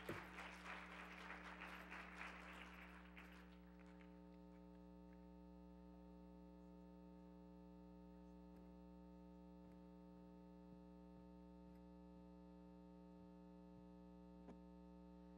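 Faint audience applause dying away over the first three or four seconds, then near silence with a steady electrical mains hum.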